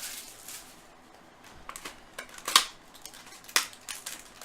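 Hands opening a hobby box of Bowman Chrome baseball card packs, cardboard and foil wrappers: scattered light rustles and a few sharp clicks, the loudest about two and a half seconds in and another about a second later.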